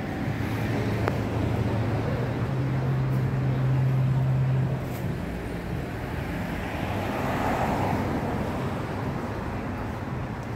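Street traffic: a motor vehicle's engine runs with a steady low hum that steps up in pitch about two and a half seconds in and drops away near the middle. A broad rushing swell of passing traffic follows.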